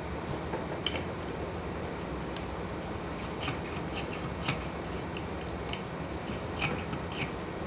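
Light clicks and taps of a plasma-cutter Z-axis assembly being handled, irregular and scattered, with a couple of sharper ones, over a steady low hum.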